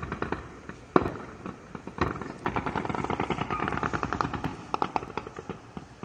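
Gunfire from a street shootout: rapid strings of shots, as from automatic weapons, with single louder shots about one and two seconds in. The firing thins out near the end.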